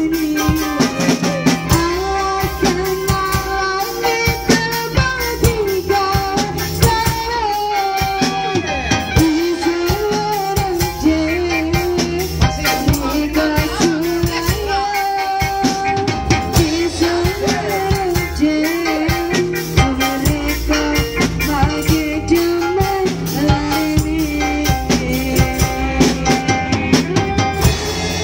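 Live band playing a song on drum kit, electric guitars, bass guitar and keyboard, with a woman singing the melody into a microphone over a steady drum beat.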